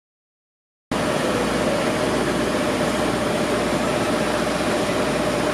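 City street ambience: steady traffic noise with a constant hum. It cuts in abruptly about a second in, after silence.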